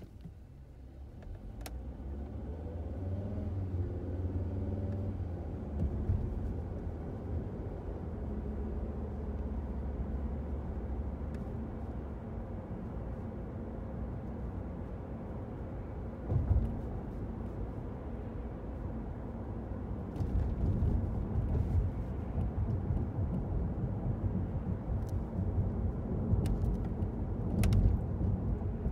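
A car heard from inside the cabin, pulling away from a standstill: the engine note rises as it accelerates a couple of seconds in, then settles into a steady low engine and road rumble. A single thump comes about halfway through, and the road noise turns rougher and louder in the last third.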